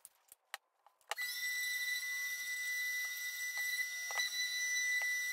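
Electric random orbital sander with a dust-extraction hose switching on about a second in, spinning up and then running with a steady high whine, used for a finish sanding with 180-grit paper; a few light knocks over it.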